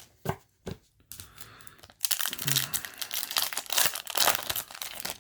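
Foil trading-card booster pack wrapper crinkling as it is torn open, a dense crackle for about three seconds after a few light clicks.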